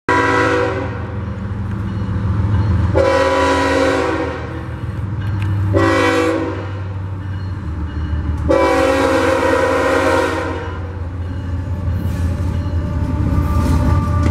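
Union Pacific diesel freight locomotive's air horn sounding the grade-crossing signal: long, long, short, long. The low rumble of the diesel locomotives runs under it and grows louder near the end as the lead units pass close by.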